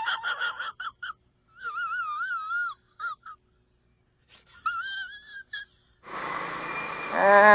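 A man's high, wavering, whiny vocal squeals, strained and wheezy, in short bursts with a silent gap between two groups. About six seconds in, motorcycle wind and road noise comes in.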